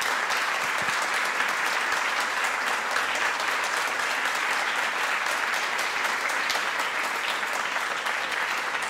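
A large audience applauding steadily: dense, continuous clapping from many hands.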